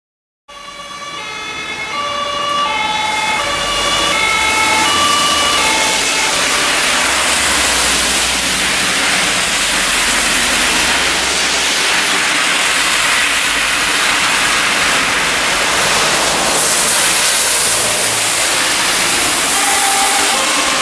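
Pintsch Bamag Topas MS300 electronic two-tone siren (German Martinshorn) sounding its alternating high and low tones for about the first six seconds. A steady, loud hiss of heavy rain and spray then swamps it, and the tones come back faintly near the end.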